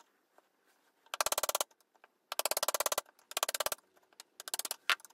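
Hand chisel paring the wall of a mortise against a clamped guide block, in four short strokes about a second apart, each a rapid run of clicks as the edge chatters down the wood.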